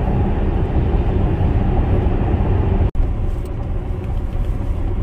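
Steady road and tyre rumble with wind noise inside an electric car's cabin at highway speed, with no engine note. It breaks off for an instant about three seconds in.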